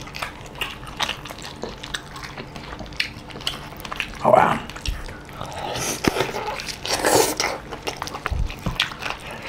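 Close, wet eating sounds: chewing and lip smacks, with many small squishy clicks as curried chicken is pulled apart by hand and eaten. A louder brief sound comes about four seconds in, and another around seven seconds.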